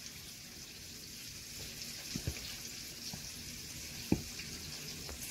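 Marinated chicken wings being dropped by hand into a bowl of potato starch: a few soft thumps, the clearest about two seconds in and about four seconds in, over a faint steady hiss.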